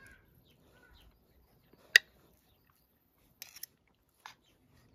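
Metal spoon and fork striking and scraping a china plate: one sharp clink about two seconds in, then a short scrape and a fainter click near the end.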